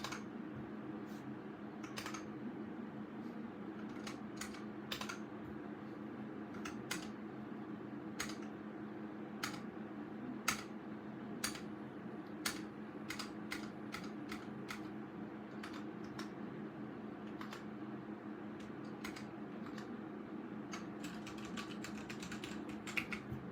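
VOOKA Trol mechanical keyboard with linear red switches being typed on: separate keystrokes at an irregular pace, a few of them louder, with a quicker run of keys near the end.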